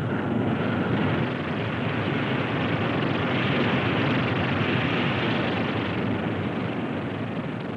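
Corporal missile's acid-aniline liquid-fuel rocket motor firing at liftoff and climb-out: a steady rushing exhaust noise that eases slightly near the end.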